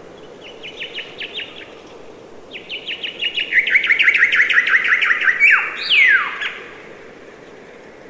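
A songbird singing. A short run of quick chirps comes first, then a longer, faster trill that drops in pitch and ends in a couple of sweeping downward notes. Steady background noise runs underneath.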